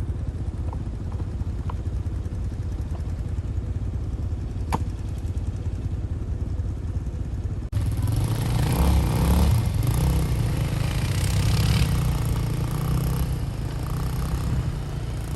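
Off-road vehicle engine idling steadily with a low rumble. About eight seconds in, the sound changes abruptly to an engine running louder and rougher.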